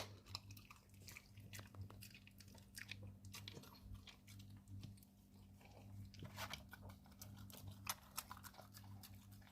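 An American Staffordshire Terrier puppy faintly chewing and crunching a chicken neck, with irregular small crunches and clicks of bone, over a steady low hum.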